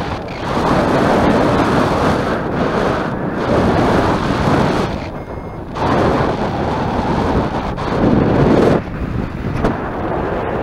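Wind rushing over the microphone of a camera flying with a paraglider, swelling and easing in several gusts.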